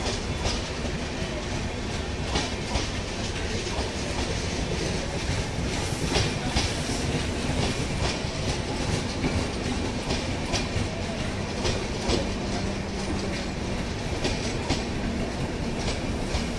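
Indian Railways express train's passenger coaches rolling steadily past on the next track: a continuous rumble of wheels on rail, with irregular clicks as the wheels cross rail joints.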